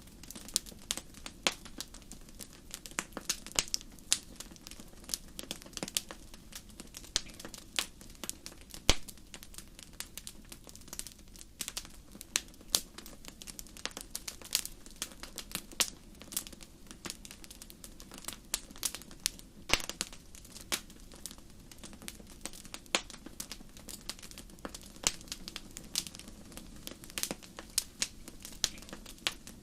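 Wood fire crackling, with irregular pops and snaps over a low steady rumble of the flames. The sharpest snap comes about nine seconds in.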